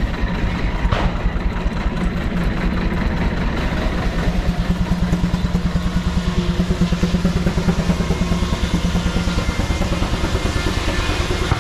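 Advance-Rumely steam traction engine running under load, belted to a sawmill: a fast, even beat with a steady low hum underneath.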